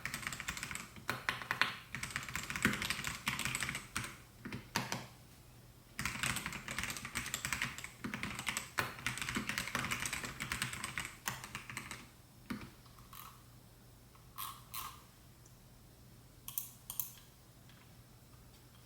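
Melgeek Mojo68 mechanical keyboard with white Pro switches being typed on in fast, continuous runs for about twelve seconds. Near the end only a handful of single keystrokes follow.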